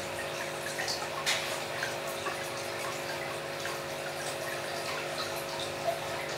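Aquarium water trickling and dripping steadily over a constant mechanical hum, with scattered small drips and two sharper ticks, one about a second in and one near the end.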